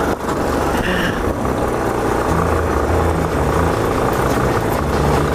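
Motorcycle engine running as the bike rides along a gravel road; the engine note grows louder about two seconds in.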